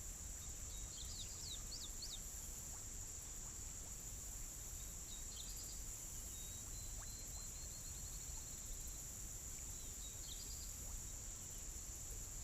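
Quiet outdoor ambience: a steady high-pitched insect drone, with a few bird chirps about one to two seconds in, a short bird trill in the middle and more chirps near the end.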